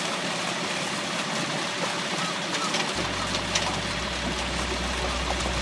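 Water gushing out of a fish-stocking truck's discharge pipe and splashing into a pond, a steady rushing noise. A low steady hum comes in about three seconds in.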